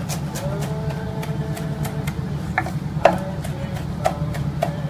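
Knife chopping kale on a wooden cutting board. There is a pause of about two and a half seconds, then the chops start again at about two a second.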